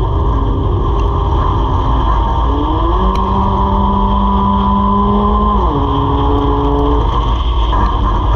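Race car engine heard from inside the car over a heavy low rumble, its pitch rising about two and a half seconds in, held high for a few seconds, then dropping back a little before six seconds in.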